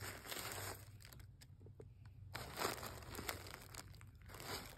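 Tissue paper crinkling in three bursts as a book is drawn out of its wrapping and handled.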